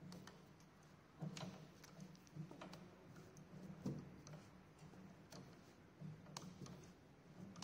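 Faint, irregular clicks and taps of a metal hand tool and pedal being worked while a pedal is tightened onto an exercise bike's crank arm, over a low steady hum.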